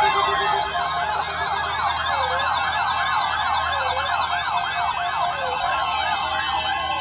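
Electronic siren sounds overlapping: a fast warbling yelp and a slower wail that sweeps up and down about every one and a half seconds, over steady tones.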